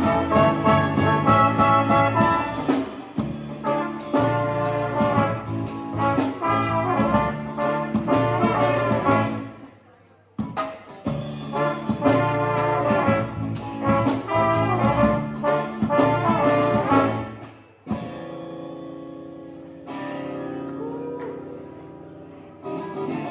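Live jazzy band music with trombone and trumpet playing the tune over electric guitar and bass. The playing breaks off briefly about ten seconds in, then stops abruptly near the end, leaving a quieter held sound.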